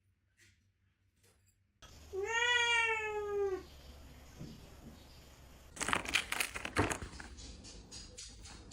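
A cat gives one long, drawn-out meow. About two seconds later comes a short burst of rustling and knocking clatter, followed by a few faint ticks.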